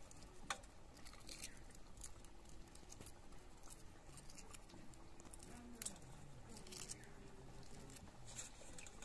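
Faint crackling and clicking of eggshell being cracked and peeled off a boiled egg by hand, in scattered small snaps a second or so apart.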